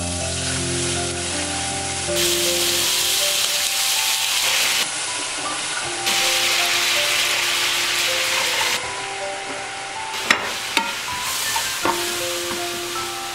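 Butter, sugar and milk caramel sizzling and bubbling in a nonstick frying pan as it is stirred with a wooden spatula. A few sharp knocks come about ten seconds in, as toasted bread cubes go into the pan.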